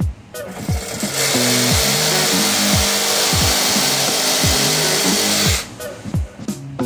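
Cordless reciprocating saw cutting into a plastic sump pit lid. It starts about a second in and stops about a second before the end, over background music with plucked low notes.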